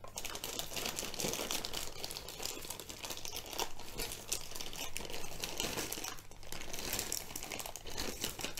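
Plastic courier mailer bag being torn open and worked by hand, crinkling and rustling continuously with irregular sharp crackles.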